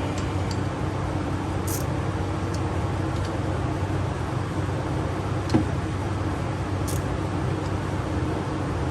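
Steady mechanical hum and hiss, with a few short metallic clicks and one sharper knock about halfway through as hand tools work on a tight steering box bolt.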